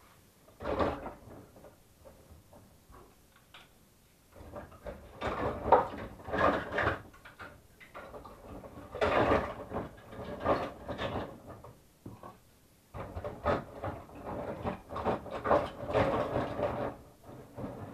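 Small plastic parts from a Saeco Minuto coffee machine being handled and cleaned: irregular bouts of rubbing and clattering with small knocks, separated by short pauses.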